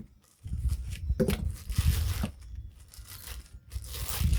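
Packaging being torn open and crinkled by hand, in two rustling stretches, while unboxing a power tool's accessories.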